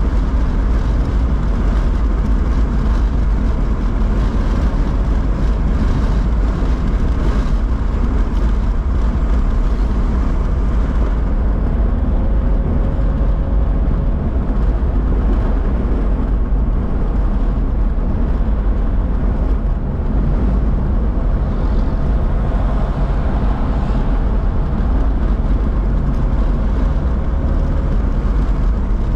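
Car's road and engine noise heard inside the cabin while driving, a steady low rumble with tyres running on wet pavement.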